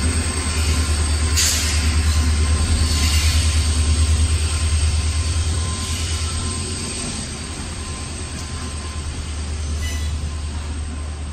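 Passenger train coaches rolling past close by: a steady low rumble of wheels on the track with a quick, even pulsing clatter and a sharp clack about a second in, easing off a little after about six seconds.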